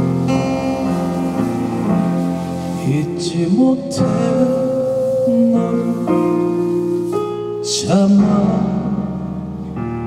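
Music: a slow song on acoustic guitar over a keyboard backing track, with a man's voice singing a few sliding, held notes around three to four seconds in and again near eight seconds.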